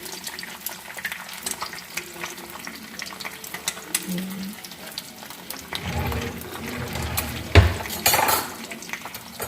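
A sunny-side-up egg frying in a pan, sizzling and crackling steadily. About three-quarters of the way through there is louder kitchen handling, with one sharp knock followed by a brief clatter.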